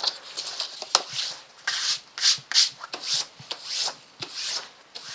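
Hand rubbing over paper in repeated, irregular strokes, with one sharp click about a second in.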